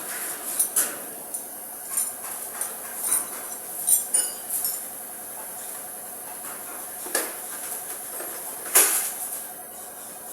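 Irregular metal clinks and knocks from metal pieces and tools being handled, some with a short ringing tone. One sharp strike near the end is the loudest.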